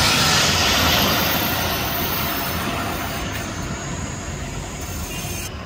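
Twin-engine business jet passing low overhead on approach with its landing gear down: a loud jet rush that is loudest at the start and fades steadily as the aircraft flies away.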